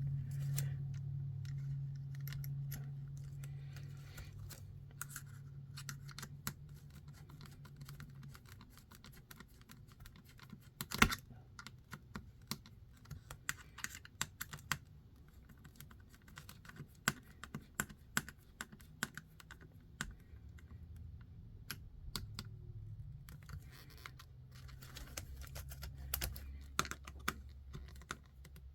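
Irregular light clicks and taps of small screws and tools being handled while a screw is fitted into an RC crawler chassis, with one sharper click about eleven seconds in. A low hum fades out over the first several seconds.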